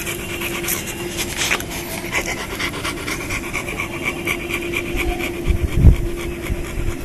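A young Bullmastiff panting fast and rhythmically, close up to the microphone, about four to five breaths a second. About six seconds in, a low thump.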